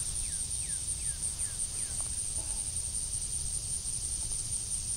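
Insects droning steadily at a high pitch, with a bird giving a quick run of about six short falling whistles in the first two seconds, over a low background rumble.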